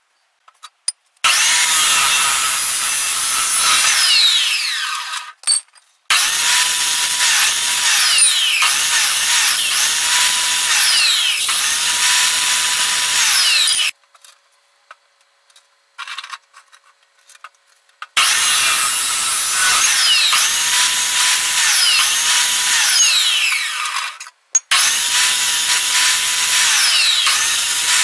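Electric abrasive chop saw cutting metal pipe: a loud, harsh grinding in long runs, the motor's whine dipping and recovering as the disc bites. The saw goes quiet for a few seconds near the middle, with only a few small clicks, then cuts again.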